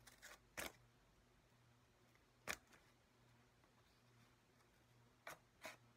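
Scissors snipping through the packing tape on a small cardboard box: about five short, sharp cuts, the loudest about two and a half seconds in and a quick pair near the end.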